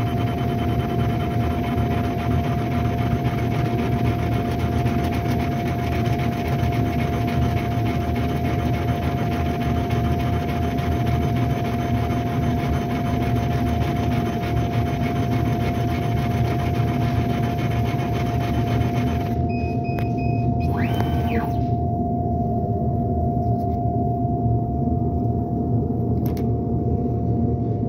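Laser engraver at work: a steady loud hum from its fans and pump with a steady tone, over fine rapid chatter from the moving engraving head. About two-thirds through the chatter stops and a short whine rises and falls, while the hum carries on.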